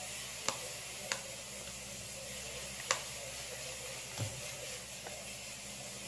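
Thin plastic soap mold clicking three times as it is flexed and pressed to release a block of hardened homemade soap, then a soft thump about four seconds in as the bar comes loose, over a steady hiss.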